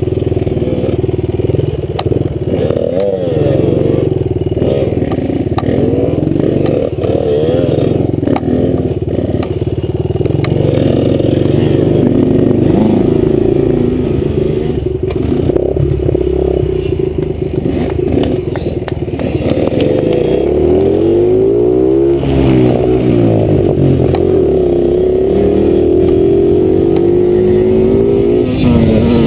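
Dirt bike engine heard from the rider's helmet, revving up and down as the throttle is rolled on and off along a twisting trail, with a long drop and climb in pitch about twenty seconds in. Short knocks from the bike over rough ground are scattered through it.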